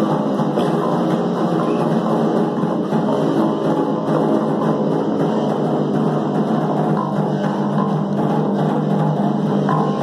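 A live rock band playing: electric guitar, electric bass and drums with a snare, in a steady, continuous groove.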